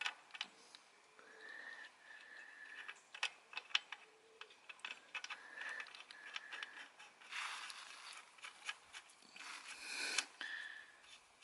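Faint, scattered small metallic clicks and short scrapes as the oil drain bolt, with a new gasket fitted, is put back in and threaded home.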